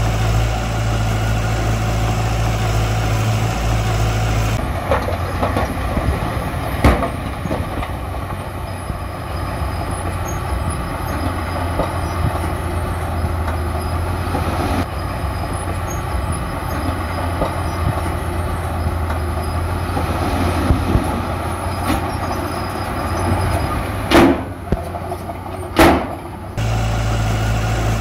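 Diesel engine of heavy construction machinery running steadily, its sound changing abruptly about five seconds in. Occasional clunks are heard, and two short loud bursts come a couple of seconds apart near the end.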